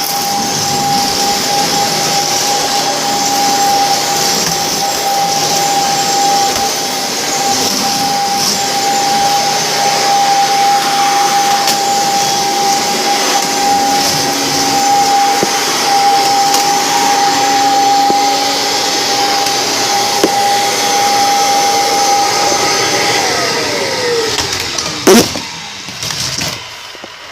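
Vacuum cleaner running steadily with a high motor whine over its airflow rush; near the end it is switched off and the motor whine falls in pitch as it winds down, with a sharp knock as it stops.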